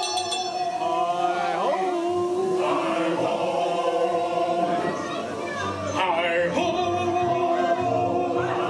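Music with a group of voices singing in held, choir-like notes.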